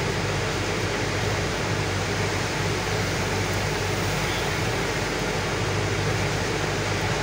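Truck's diesel engine running under way with road and wind noise, heard from inside the cab as a steady low drone.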